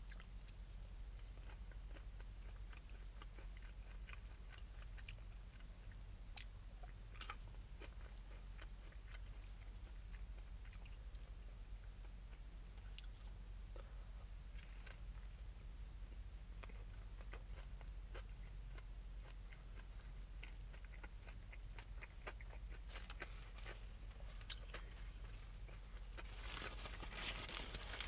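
A person chewing and crunching a crispy fried chicken sandwich close to the microphone, with scattered crisp crackles and a denser burst of crackling near the end.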